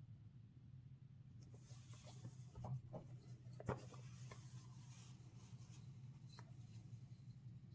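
Faint rubbing and light clicks of a trading-card starter deck's packaging and cards being handled during unboxing, with one sharper click a little past halfway, over a low steady hum.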